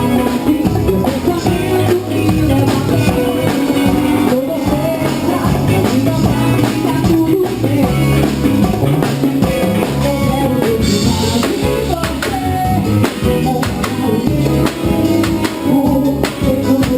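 A band playing live at a sound check: electric guitar and drum kit keeping a steady beat, with a voice singing over them.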